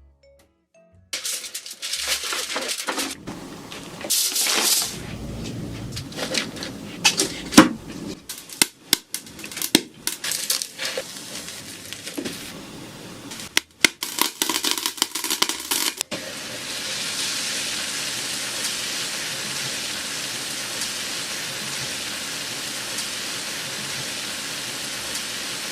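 Shrimp shells being cracked and broken apart, many sharp cracks and crunches for about fifteen seconds, then a steady sizzling hiss for the rest.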